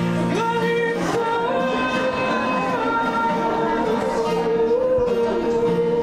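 A woman singing live to her own acoustic guitar, holding long notes over the guitar.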